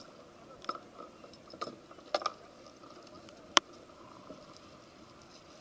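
Camera handling noise: scattered clicks and rustles close to the microphone over a low hiss, with the sharpest click about three and a half seconds in.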